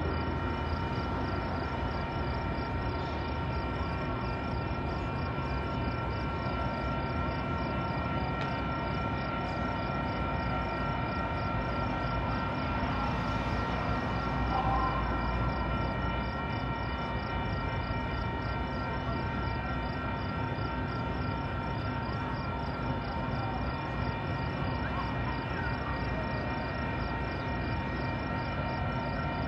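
Metra commuter train standing at the platform, running with a steady low rumble and several steady whining tones. A faint high pulsing repeats about twice a second.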